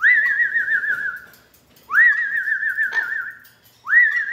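Amazon parrot whistling three times, calling for a missing companion. Each whistle is a quick upward swoop followed by a wavering, slowly falling tone about a second and a half long.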